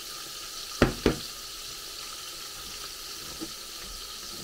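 Battered tempura pieces sizzling steadily in hot oil in a frying pan, with two sharp knocks close together about a second in.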